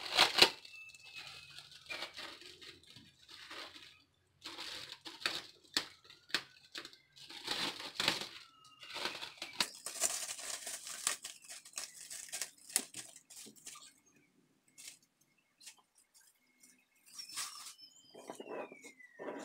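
Plastic cling wrap crinkling and rustling as it is peeled off a glass bowl of risen yeast dough, then softer rustling as hands work flour into the dough. A few faint whistle-like tones glide through, one falling near the end.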